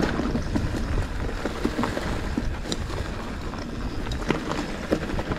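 Mountain bike riding down a rough dirt trail: a continuous rumble of tyres and wind on the microphone, broken by frequent short knocks and rattles from the bike over roots and rocks.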